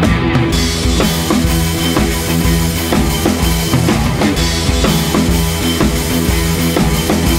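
Rock music with a steady drum-kit beat, growing fuller about half a second in.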